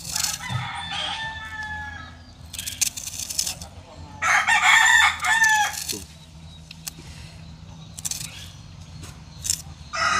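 A rooster crowing twice, the louder crow about four seconds in, each call ending in a falling note. Between the crows, a knife clicks sharply against a wooden cutting board as an onion is sliced.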